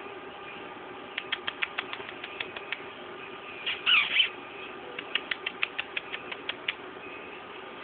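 A person's quick kissing clicks made with the lips to coax a pet rat, in two runs of about six a second, with a high squeak that falls in pitch between them.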